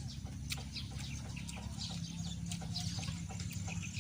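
Steady rain falling, with short, repeated animal calls over it.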